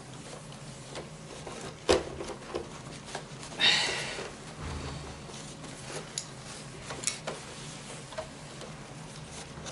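Light handling and wiping noises while cleaning a Roomba's plastic body with a paper towel: scattered small clicks, a sharp tap about two seconds in, and a short rubbing hiss around four seconds.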